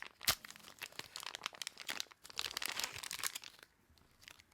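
Plastic packaging bag crinkling and tearing as it is opened by hand, with a sharp crack about a third of a second in and a dense stretch of crackling around two to three seconds, dying down near the end.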